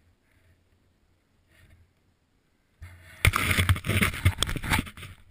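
Near silence for nearly three seconds, then loud, rough rushing noise with many irregular knocks and scrapes: wind and movement on the microphone of a helmet camera over snow.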